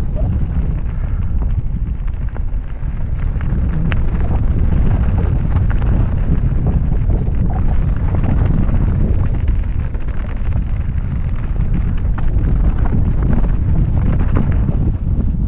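Wind buffeting a helmet-mounted camera microphone during a fast mountain-bike descent, over the crunch and rattle of tyres and bike on loose stones.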